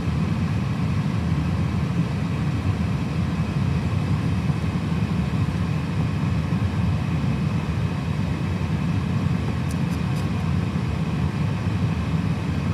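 Steady low rumble of an Airbus A320 waiting at the runway holding point, heard from inside the cockpit: idling jet engines and the cockpit's air-conditioning noise, with a few faint ticks about ten seconds in.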